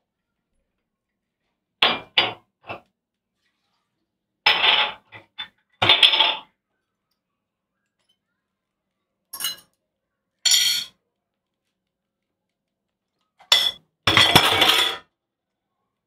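Kitchenware clinking and clattering in short bursts, five clusters spread out with pauses between them. The longest run of clatter comes near the end.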